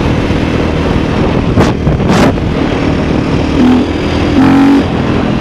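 KTM 450 EXC single-cylinder four-stroke dirt bike engine running under way as the bike is ridden, with wind rushing over the microphone; the engine note strengthens briefly near the end.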